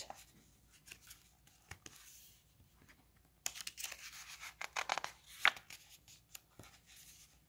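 A page of a picture book being turned by hand: paper rustling and sliding for about two seconds, starting about halfway in.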